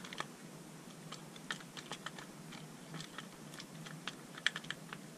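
Plastic clamshell housing halves of a DeWalt DCF887 impact driver handled and pressed together by hand: irregular clicks and taps, with a quick cluster of several clicks near the end.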